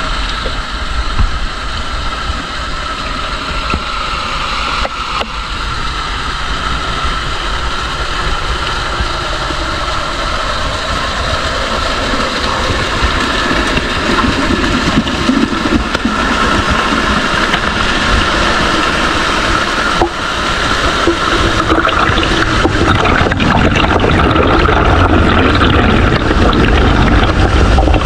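Small waterfall pouring over rock into a pool, heard close at the water's surface: a steady loud rush of falling and churning water that grows gradually louder and deeper over the second half.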